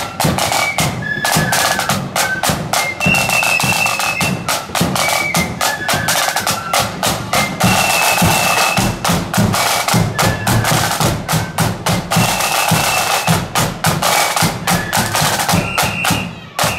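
Marching band playing on parade: a row of snare drums beating fast rolls and rhythms over a bass drum, with a high flute melody above. The music falls away near the end.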